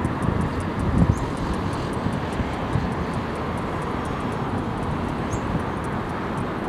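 Wind buffeting the microphone over a steady distant roar, with two faint high chirps.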